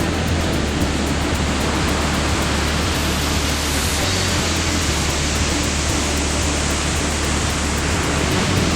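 A steady, loud rushing noise with no breaks, over a constant low hum.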